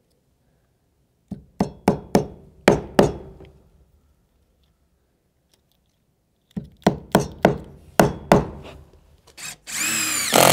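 Two runs of sharp hammer taps, about six and then about eight blows, knocking composite tongue-and-groove deck boards into place. Near the end a drill starts running.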